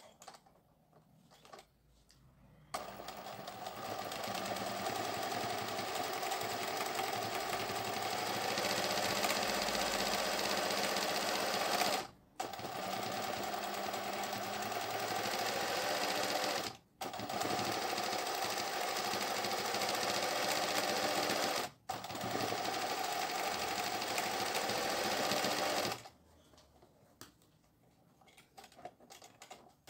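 Singer 20U industrial zigzag sewing machine running at a steady speed, embroidering a felt appliqué. It starts about three seconds in, stops briefly three times, and halts a few seconds before the end.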